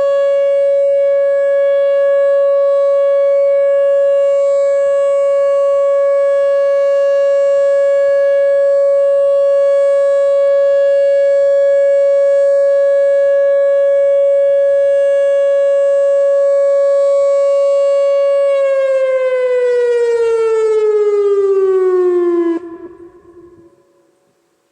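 Whelen WPS-2910 electronic outdoor warning siren sounding its steady alert tone, a single pitch rich in overtones. Near the end it glides down in pitch over about four seconds, cuts off abruptly and leaves a short echo dying away.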